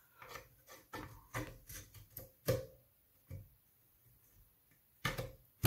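Plastic ribbon cable and connector handled against a hard drive's circuit board: a run of light clicks and rubbing for the first few seconds, a pause, then a sharper knock near the end.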